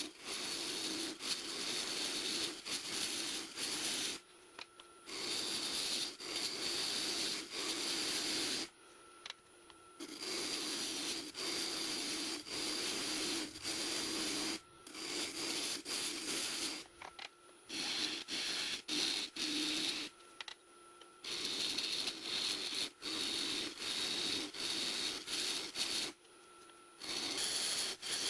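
A lathe gouge cutting and scraping a spinning elk antler and resin bowl blank, in rasping passes of a few seconds with short breaks between them. A faint steady whine from the running lathe shows in the breaks.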